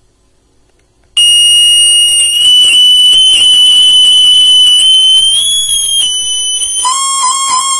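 Acoustic feedback through a small portable speaker wired to a homemade electret-microphone circuit. After near silence, a loud, steady, high-pitched whistle starts suddenly about a second in and wavers slightly in pitch. Near the end a lower second tone joins it and pulses.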